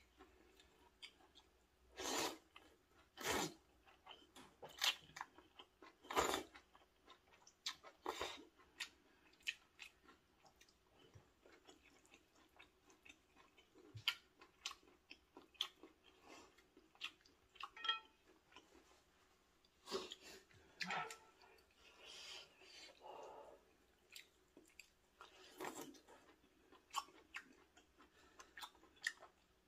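Eating sounds: rosé maratang noodles slurped and chewed in short separate bursts, every second or two.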